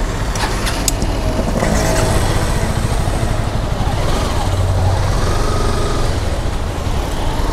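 A motorcycle running on the road, with a dense, steady low rumble throughout.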